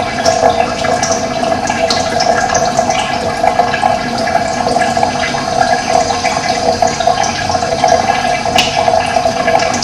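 Running water flowing steadily, a continuous rushing with no breaks.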